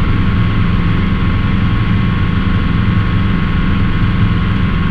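Schweizer 300 helicopter's four-cylinder piston engine and rotors running steadily in cruise flight, heard from inside the cockpit as a constant low drone with a faint steady whine above it.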